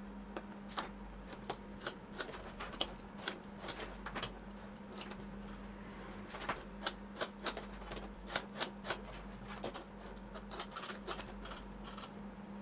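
A pointed steel tool scratching the leather in short, sharp, irregular strokes, often in quick clusters, scuffing the edge strip of a leather panel to roughen it for glue. A faint steady hum runs underneath.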